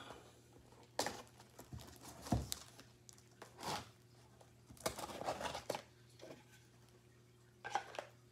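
Packing tape on a cardboard box being slit with a knife and the flaps pulled open, in several separate short scraping and tearing strokes.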